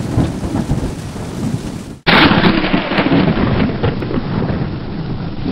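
Thunderstorm sound effect: thunder over steady rain. About two seconds in it cuts abruptly to a second, duller-sounding storm clip.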